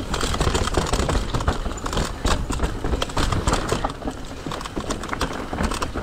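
Mountain bike descending a rocky trail: a dense, irregular run of knocks and rattles from the tyres striking rock and the bike jolting, over a low rumble.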